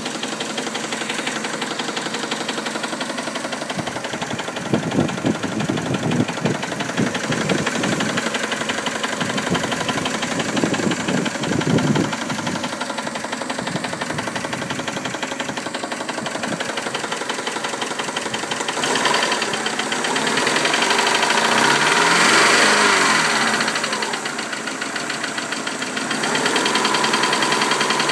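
First-generation Subaru Legacy's EJ20 flat-four boxer engine running with the abnormal noise that it is being checked for. It has uneven louder pulses in the first half, is revved up and back down about two-thirds of the way in, and settles at a slightly higher steady speed near the end.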